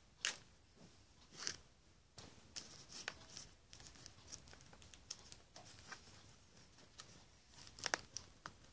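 Clear plastic shrink-wrap on a DVD box set being torn open and crinkled by hand: a string of short crackles and rips, loudest just after the start and again near the end.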